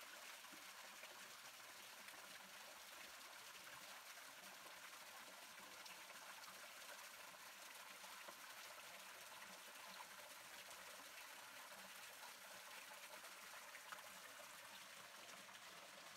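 Small waterfall trickling down a rock face into a shallow pool: a faint, steady splashing.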